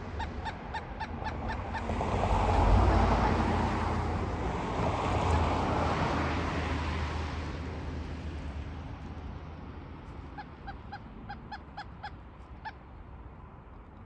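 Pileated woodpecker calling in quick series of short, same-pitched notes, about four a second, at the start and again from about ten seconds in. A car passes on the road, swelling a few seconds in and then fading out.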